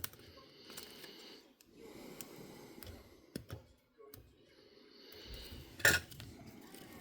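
Small clicks and taps of parts and tools being handled while a Sony MZ-R3 MiniDisc recorder is taken apart, over a low rustle of handling, with one sharper click about six seconds in.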